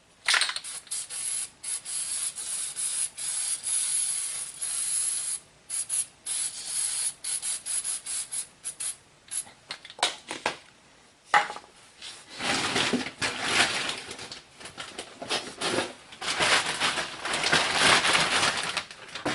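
An aerosol can of spray grease hissing in several short spurts, followed later by scraping and rubbing as parts are fitted back onto the truck's front hub.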